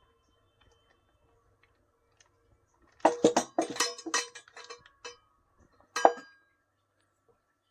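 Hard metal parts clinking and knocking together as they are handled: a rapid flurry of clinks about three seconds in, then one sharp, louder knock a little later.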